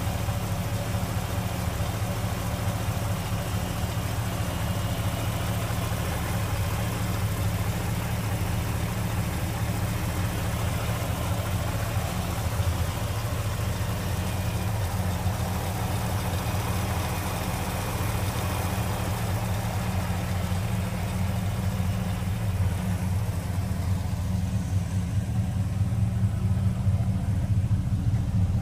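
1965 Studebaker Daytona Sport's V8 engine idling steadily, with an even low rumble and no revving; it gets a little louder near the end.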